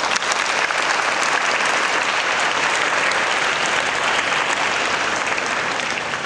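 Large audience applauding, a dense, steady clapping that begins to die away near the end.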